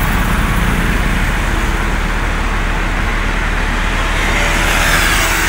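Steady road traffic on a multi-lane road: a continuous rumble of engines and tyres, swelling from about four seconds in as a vehicle comes closer.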